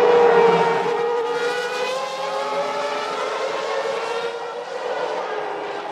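Formula One car's 3-litre V10 engine running at high revs, its pitch dipping slightly over the first couple of seconds. It is loudest in the first second.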